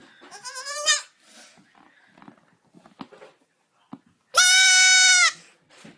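An animal calling twice: a short call rising in pitch near the start, then a loud, steady call held for about a second past the middle.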